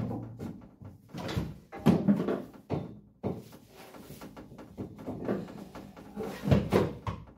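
Irregular knocks, clunks and scraping of a hand tool on the bare sheet-metal floor pan of a stripped Subaru WRX wagon shell, as the floor is scuffed by hand to prep it for paint. The loudest knock comes right at the start.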